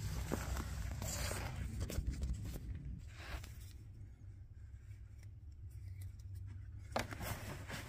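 Scraping and rustling from hands working close to the microphone, over a steady low rumble, with a sharp click about seven seconds in.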